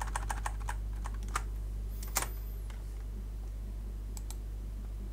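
Typing on a computer keyboard: a quick run of keystrokes in the first second, then a few scattered single key presses, over a steady low electrical hum.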